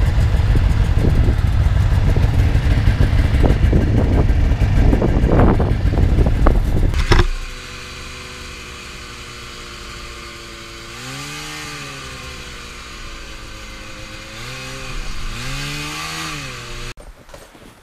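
A loud low rumble with some clatter for the first seven seconds. Then, after a sudden change, a snowmobile engine is heard from the rider's seat, running steadily, with its pitch rising and falling twice as the throttle is worked.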